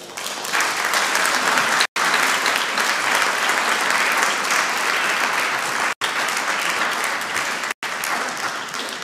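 Audience applauding, many people clapping steadily, starting to die away near the end. The sound cuts out completely three times for an instant.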